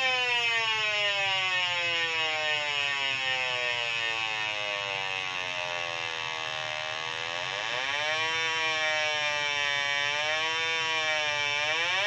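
Electronic combustible gas leak detector giving a continuous whining tone whose pitch follows the gas level: it falls slowly for about six seconds, rises again about seven seconds in and wavers, then climbs sharply near the end. The rising pitch signals leaking gas at the water heater's gas control valve.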